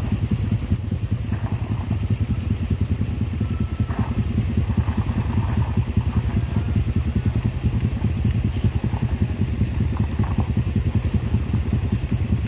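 An engine idling close by, a steady low throbbing rumble.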